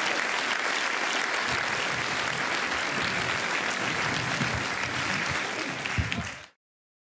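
A large audience applauding steadily, cutting off suddenly about six and a half seconds in.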